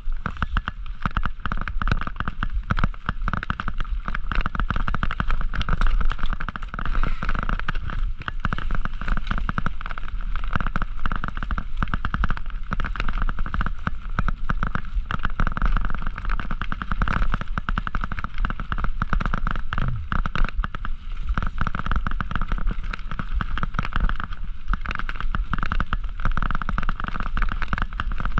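Mountain bike ridden over a rough dirt trail: a constant rattle of small knocks and jolts from the bike and its mounted camera, over a steady low rumble.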